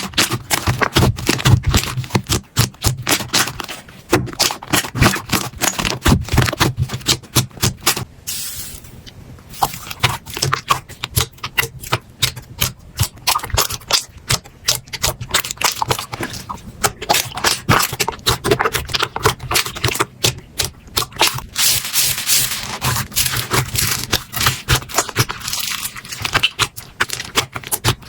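Slime being pressed and squished by hand: a dense run of small clicks and crackles that eases off briefly about eight seconds in.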